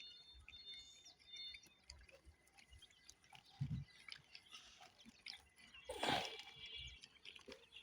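Faint scattered soft taps and rustles, with a few faint high peeps from newly hatched quail chicks in the first second or two. There is a soft low thump about four seconds in and a brief louder rustle about six seconds in.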